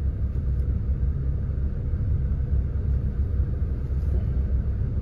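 Saturn's engine idling with a steady low rumble, the engine still misfiring.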